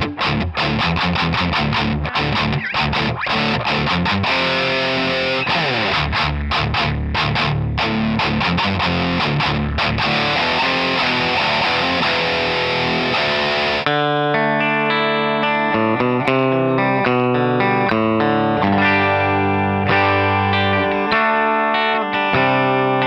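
Gibson SG electric guitar played through an amp with heavy distortion: fast riffs and chords. About fourteen seconds in it switches to a cleaner tone, with single notes and chords left to ring.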